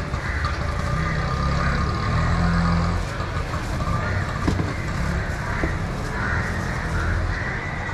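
Busy street background: a steady low engine rumble from vehicles close by, swelling slightly about two seconds in, under faint distant chatter, with a couple of light clicks.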